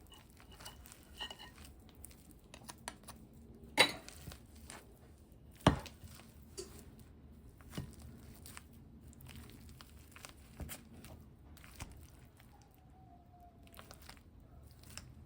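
Boiled potatoes being mashed by hand with butter and cream cheese in a pot: soft squishing and scattered small clicks, with two loud knocks of the mashing tool against the pot about four and six seconds in.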